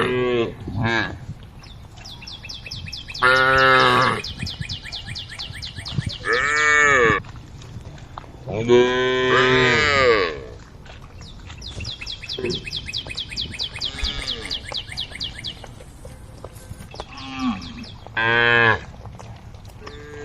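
Cattle mooing: about seven long calls from several cows, some rising and falling in pitch, with a fast, high, steady chirping between the calls.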